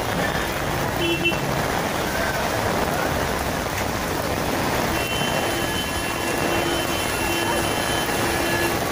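Steady rain falling on a street, with traffic in a jam. A beeping tone repeats several times in the second half.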